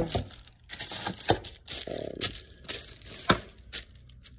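Clear plastic zip-top bag of bolts crinkling as it is handled, with a few sharp knocks of parts against a wooden workbench.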